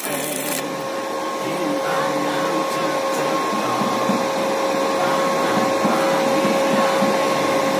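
Arc welding equipment: a brief crackle of a stick-welding arc right at the start, then a steady machine hum with a constant high whine.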